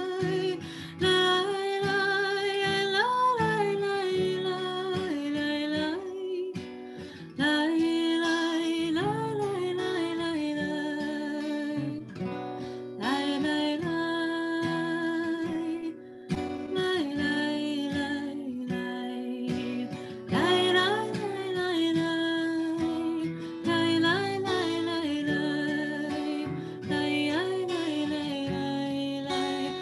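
Music: a song with a singing voice over acoustic guitar, in phrases a few seconds long with short breaks between them.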